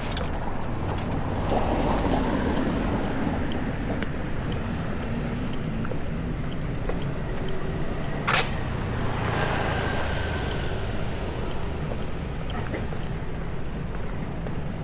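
Busy city street traffic: a steady low rumble with vehicles passing and swelling twice, and one sharp click or knock a little past halfway.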